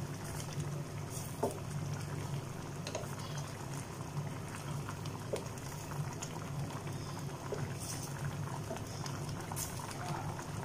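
Fish head curry with coconut milk bubbling at a simmer in a steel pot while a wooden spatula stirs it, with small soft ticks and scrapes from the spatula. The stirring keeps the coconut milk from splitting. A steady low hum runs underneath.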